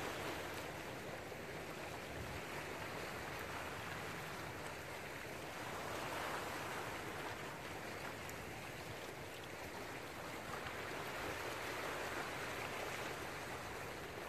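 Small sea waves washing over shoreline rocks, a steady rushing that swells and eases every few seconds.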